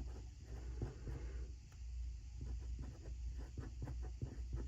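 Pen writing on planner paper: faint, irregular scratching strokes of the tip across the page.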